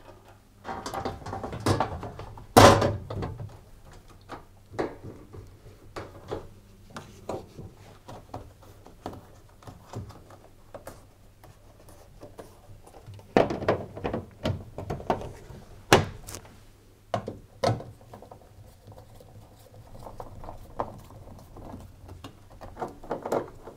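Plastic front panel of a Hoover tumble dryer being fitted back onto the cabinet and pressed into place around the door opening: irregular knocks, clicks and rattles of plastic on plastic. The loudest thump comes about two and a half seconds in, with more clusters of clicking and knocking later on.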